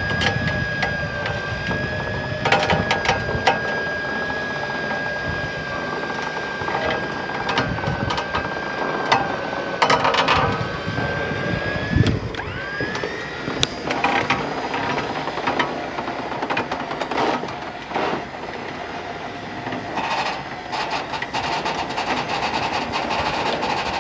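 A vehicle running with a steady high whine and frequent rattles and knocks. About halfway through, the whine drops out briefly and then glides back up in pitch.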